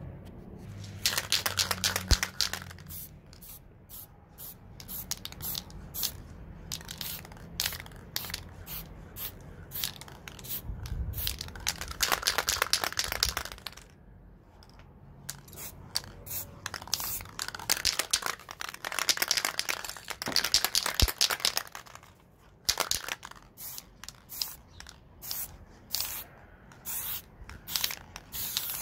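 Aerosol spray-paint can spraying in many short, quick bursts, with a few longer stretches of dense hissing lasting a couple of seconds each.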